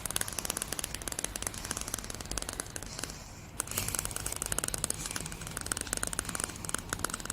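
Greyhound chattering its teeth in excitement: a fast, continuous rattle of tiny clicks that pauses briefly about three seconds in.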